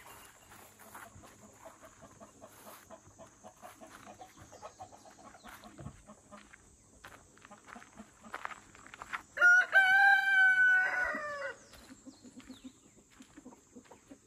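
A rooster crows once, loudly, for about two seconds, holding its pitch and then dropping at the end.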